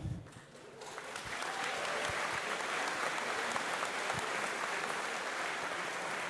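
Crowd applauding: many hands clapping that swell in within the first second and then hold steady.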